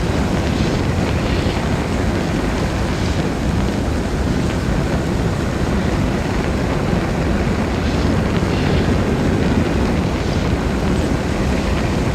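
Steady low rumble with a faint hiss that swells briefly about a second in and again about eight seconds in; no shots or impacts.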